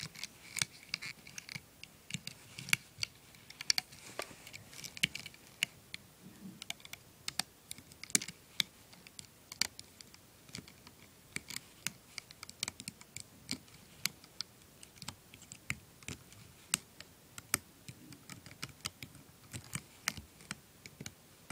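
Plastic hook clicking against the pegs of a plastic rubber-band loom as rubber bands are looped over, an irregular run of sharp clicks and snaps, several a second.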